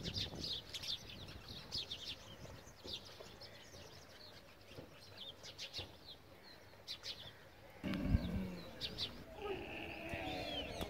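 Small birds chirping in many quick, short calls. About eight seconds in, a loud low rumble starts, followed near the end by a pitched animal calling.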